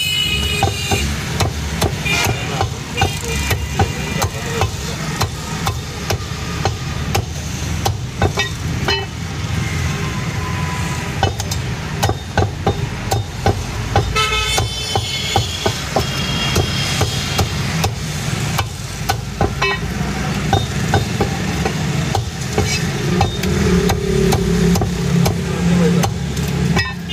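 Heavy steel cleaver chopping raw chicken on a wooden log chopping block: repeated sharp chops at an uneven pace. A steady traffic rumble runs underneath, with car horns tooting briefly near the start and again about midway.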